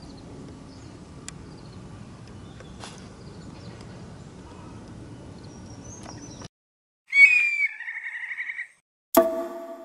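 Quiet outdoor ambience with a few faint ticks that cuts off abruptly. Then a loud added sound effect: a short falling whistle followed by a buzzy rattling trill. Near the end a struck electric-piano chord starts and rings on.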